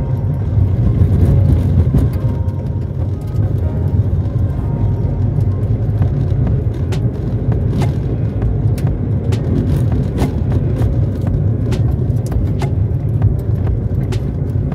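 Vehicle driving on a dirt road: a steady low rumble of engine and tyres, with frequent sharp clicks and knocks as it runs over the rough surface, more of them in the second half.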